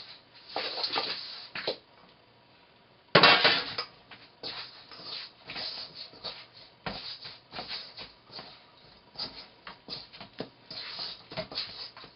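Hands kneading soft flour-and-water dumpling dough in a stainless steel bowl: repeated rough rubbing and scraping strokes against the dough and bowl, with a short pause about two seconds in and a louder scrape a second later.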